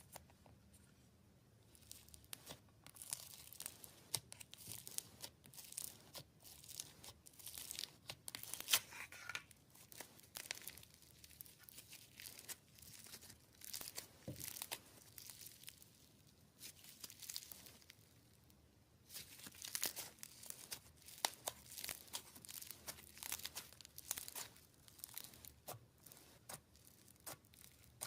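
Slime being squeezed, stretched and pulled apart by hand, giving bunches of crackling, popping and tearing sounds with short pauses between handfuls.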